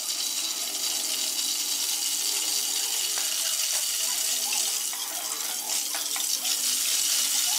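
Green cardamom pods frying in hot ghee in a steel pan: a steady sizzling hiss, with a few light clicks of a spatula against the pan in the second half.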